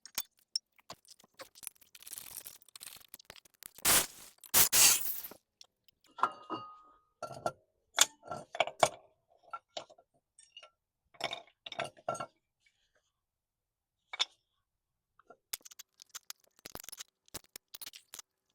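Metal hand tools and brake parts clinking and clanking during front brake work on a car, in irregular knocks and taps, with two louder rasping bursts about four and five seconds in.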